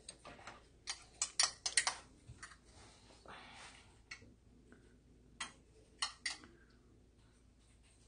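Light clicks and taps of kitchen utensils against a ceramic plate and wooden cutting board as slices of salmon are arranged for sashimi. There is a quick run of clicks in the first two seconds, then a few scattered single taps, with two close together about six seconds in.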